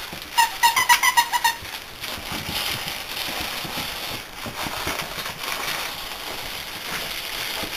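A quick run of about nine short high squeaks in just over a second, then soft rustling and scuffling as puppies move about on a cloth blanket.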